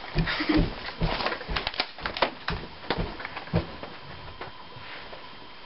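A person moving about close by: irregular footsteps, knocks and rustling for the first three to four seconds, then it goes quieter.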